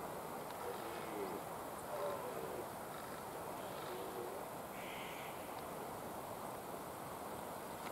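Red deer stag in the rut giving three short, faint grunting calls about one, two and four seconds in, over a steady background hiss.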